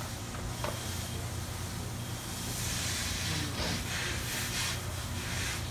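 Hissing of firefighting water hitting a burning small boat, swelling about halfway through, over a steady low rumble.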